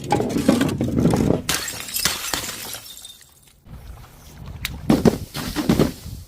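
Glass bottles shattering: a long crunching crash right at the start, another a little later, then after a short lull a quick run of sharp smashes near the end.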